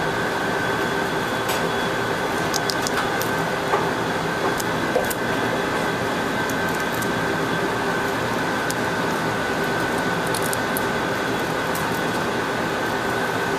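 Steady hum of kitchen ventilation with a couple of steady tones. A few faint clicks and snaps from a paring knife trimming the tough outer layer off a baby artichoke are scattered through it.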